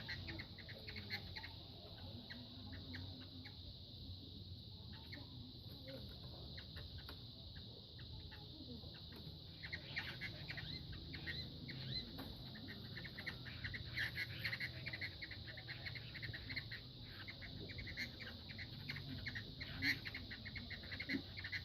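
Two gamecocks fighting: repeated wing flapping and scuffling, heard as many quick rustling strikes that grow denser about halfway through.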